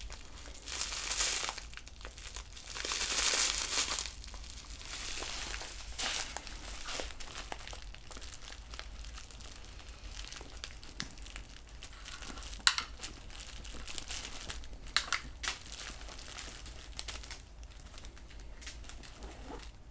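Packaging and a cloth bag being handled: rustling and crinkling, loudest in the first few seconds, then a few sharp clicks and knocks from the items being handled, from about the middle on.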